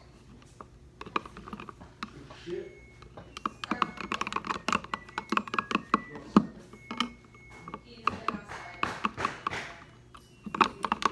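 A mixing tool stirring a very runny, watery slime mixture in a container, making rapid, irregular clicks, taps and wet squelches.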